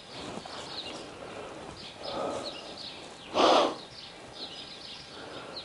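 A horse blows out hard through its nostrils once, a short breathy snort about three and a half seconds in. Small birds chirp faintly throughout.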